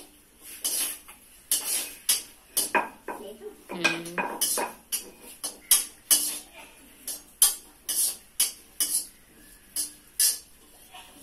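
Irregular sharp clinks and scrapes of a metal ladle against a steel kadhai as food is stirred, mixed with knocks of a wooden rolling pin on a stone rolling board.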